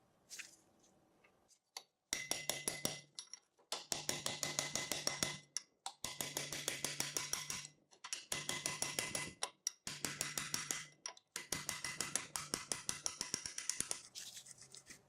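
A small power tool running in about six short bursts of a second or two each, with a steady hum and rapid clicking throughout each burst.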